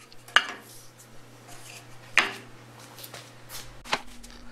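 Plywood pieces being handled and set down on the shop's work surfaces: a few separate light wooden knocks, the loudest about two seconds in, over a faint low steady hum.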